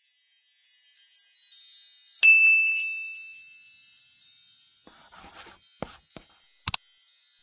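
Intro sound effects: high tinkling chimes, then a bright bell-like ding a little over two seconds in that rings on and slowly fades. Airy swishes follow, and two sharp double clicks come near the end.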